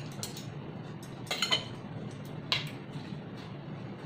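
Metal tongs clinking against a glass salad bowl and against each other while tossing and picking up salad. There are a few sharp clinks: a pair right at the start, the loudest about a second and a half in, and another about two and a half seconds in. A low steady room hum runs underneath.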